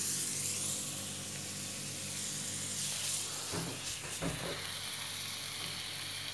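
Buttered cheese naan sizzling steadily on a hot tawa, with a few soft knocks a little past halfway.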